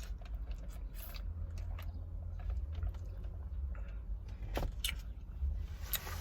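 Steady low rumble of an idling car heard inside its cabin, with a few faint clicks and taps.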